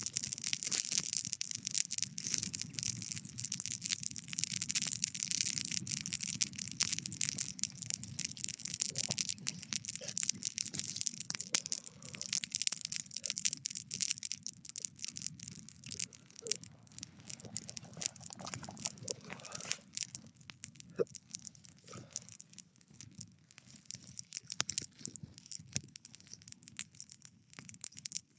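Wood campfire crackling and popping with many irregular small snaps, busiest in the first half and thinning out later.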